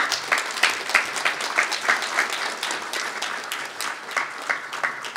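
Congregation applauding: many separate hand claps that start abruptly and keep up densely.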